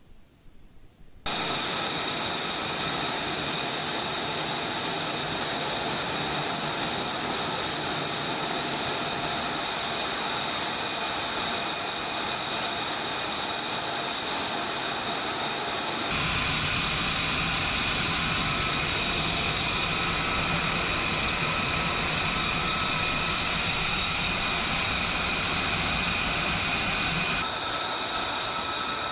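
Jet engine running steadily: a loud rushing noise with several high whining tones. It starts suddenly about a second in and changes character abruptly twice.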